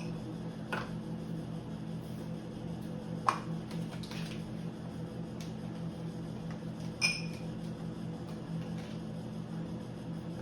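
Food storage containers being handled and set down on a surface, with a few sharp clinks; the one about seven seconds in rings briefly. A steady low hum runs underneath.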